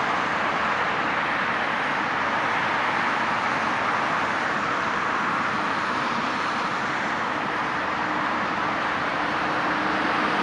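Steady roar of highway traffic, cars and buses passing on the road, with no clear rise or fall.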